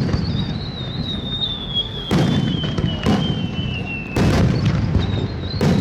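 Fireworks display: aerial shells bursting with deep booms, four big bursts about a second apart, over a continuous rumble of further shells. A thin high whistle slowly falls in pitch through the bursts.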